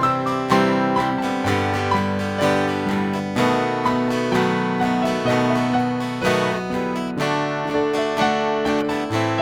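Instrumental break in a song: acoustic guitar strumming chords with piano, changing chord about every second, with no singing.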